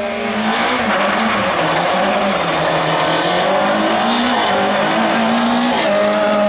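Rally car engine held at high revs, its pitch wavering up and down, under a loud rushing hiss of tyre noise that swells about half a second in and eases near the end.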